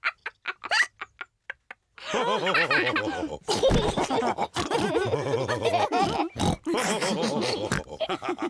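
Cartoon pig voices: a few short, separate sounds in the first two seconds, then from about two seconds in a group of pigs snorting and laughing together without a break.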